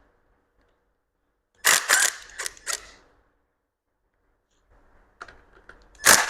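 Short clusters of sharp mechanical clicks and knocks from a tool working bolts loose on an engine. One cluster comes about two seconds in and a louder one near the end, with a pause of near silence between them.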